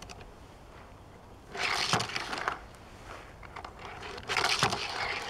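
Two short scraping, rustling bursts, about a second each, of a hand and sleeve moving over a tabletop and plastic toy track.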